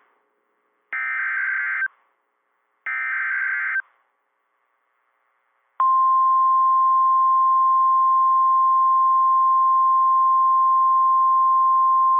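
EAS SAME header data bursts, the second and third of three, each about a second long and a second apart. After a pause of about two seconds comes the steady 1050 Hz NOAA Weather Radio warning alarm tone, starting about six seconds in and holding. Together they signal an incoming alert, here a severe thunderstorm warning.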